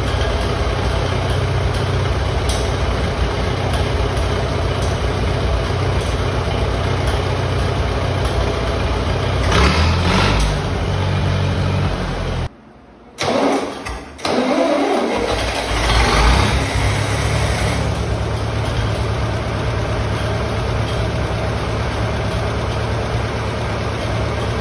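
John Deere 3020's four-cylinder gasoline engine idling steadily after a tune-up, revving up briefly about ten seconds in. The sound cuts out for about a second, then the engine picks up again, revs and settles back to a steady idle.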